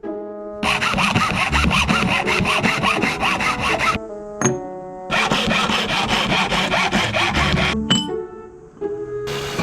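Hand saw cutting in quick, even strokes, about five a second, in two runs of about three seconds with a short pause between, over background music.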